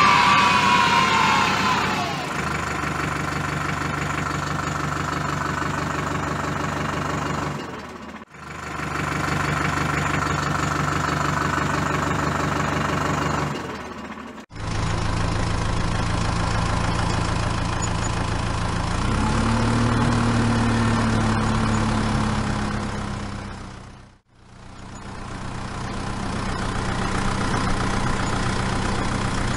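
Engine idling steadily, in edited segments that briefly fade out about 8, 14 and 24 seconds in, with one short rev about 19 seconds in.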